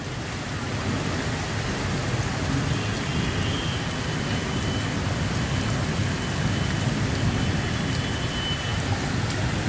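Heavy rain pouring down, a dense, steady hiss and splatter of water on surfaces.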